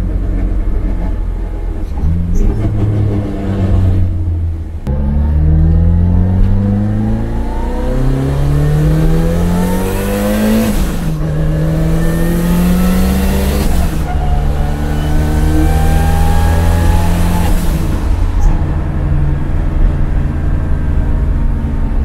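Toyota AE86 Corolla's four-cylinder engine accelerating through the gears, heard from inside the cabin: the pitch climbs in each gear and drops at each of about four upshifts.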